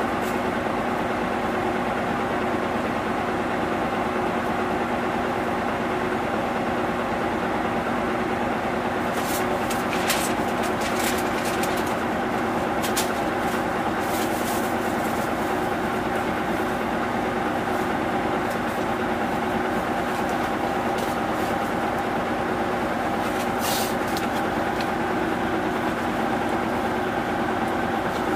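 Mitsubishi Fuso Aero Star (2PG-MP38FK) city bus heard from inside the cabin, its diesel engine running at an even, unchanging speed with a steady hum. A few faint clicks and rattles come about ten seconds in and again near the end.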